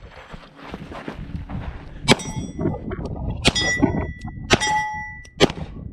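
Steel targets hit by shotgun fire: four sharp strikes about a second apart, each leaving the plate ringing with a clear metallic tone.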